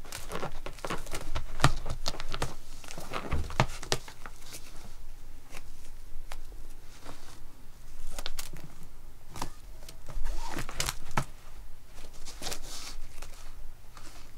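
A cat clawing and biting a glittery insect wand toy on a fabric-covered cushion: irregular scratching, rustling and crinkling with sharp little clicks, and a few longer scrapes in the second half.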